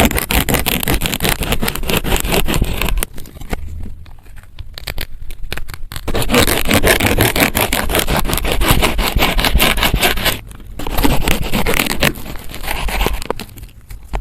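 Plastic knife sawing through fruit in rapid, close-miked scraping strokes, with a pause of a few seconds about three seconds in and a brief break about ten seconds in.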